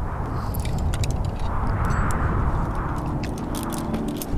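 Gusty wind buffeting the microphone, swelling to a rush about two seconds in, with scattered light clicks and clinks of caving gear being handled.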